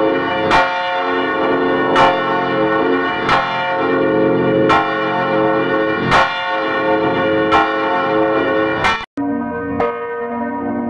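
Bells struck at a steady pace, about one stroke every second and a half, each stroke left ringing so the tones overlap. After a brief cut-out about nine seconds in, the pitches change and the strokes come quicker.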